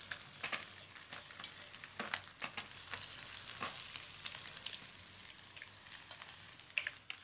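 Hot cooking oil sizzling in a frying pan around flour-coated fish as the pieces are lifted out, with scattered sharp pops. The crackling has settled down, the sign that the fish is cooked through and dry. The sizzle fades toward the end.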